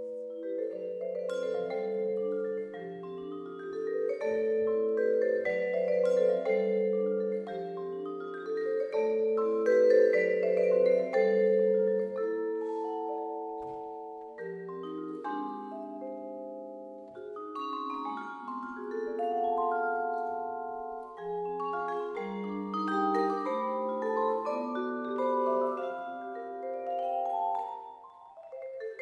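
Solo vibraphone played with mallets: quick runs and chords of struck metal bars whose notes ring on and overlap, swelling and easing in loudness, with a brief drop near the end.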